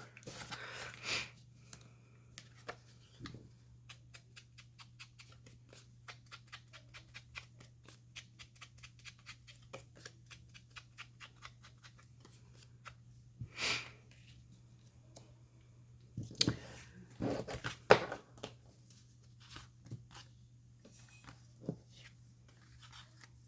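Scissors snipping paper in a long run of quick small cuts, then a few louder rustles of paper being handled near the middle and about two-thirds of the way in.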